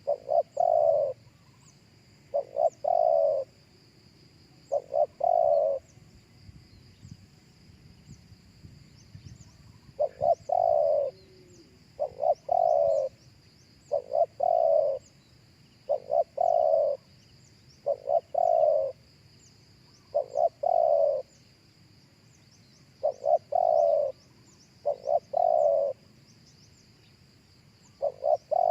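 Spotted dove cooing in repeated phrases, each two short notes followed by a longer falling coo, about every two seconds. There is a pause of about four seconds after the first few phrases.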